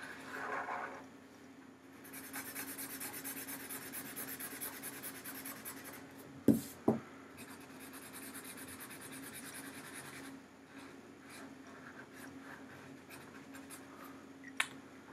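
Marker scribbling on paper, colouring in a circle with rapid back-and-forth strokes, steady for several seconds and then lighter. Two sharp knocks come close together about six and a half seconds in.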